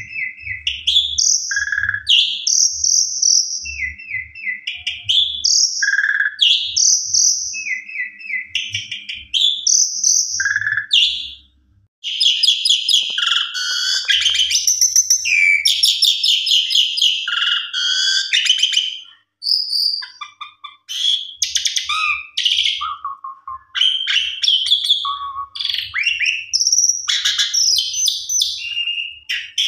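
Asian pied starling (jalak suren) singing. It gives a repeated phrase of clear whistled notes about every two seconds, then switches about twelve seconds in to fast, varied chattering song, with a brief break just before the last third.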